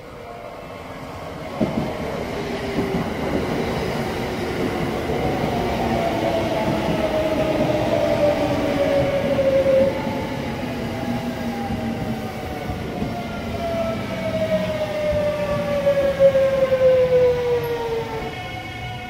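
JR West 681/683-series limited express electric train running past along the platform track, wheels rolling on the rail. Its motor whine falls slowly and steadily in pitch through most of the pass as the train slows, then fades as the train moves away. A single sharp knock comes about a second and a half in.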